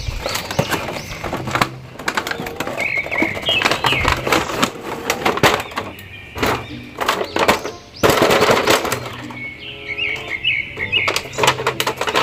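Plastic packaging crackling and clattering: an action-figure set's clear plastic tray and wrapping are handled and pulled from a cardboard box. Background music plays under it.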